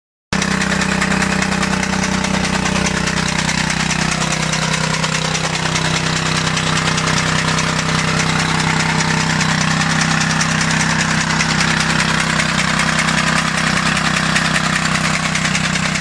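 Small single-cylinder Honda GX petrol engine running steadily, belt-driving a chaff cutter that chops green fodder stalks.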